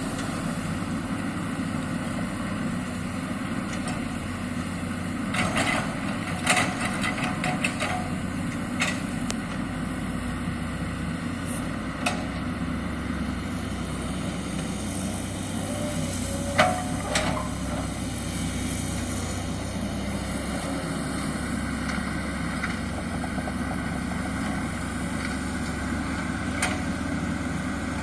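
Diesel engine of a SANY excavator running steadily, with sharp knocks and clanks now and then: a cluster about a quarter of the way in, another past the middle with a brief squeal, and a single one near the end.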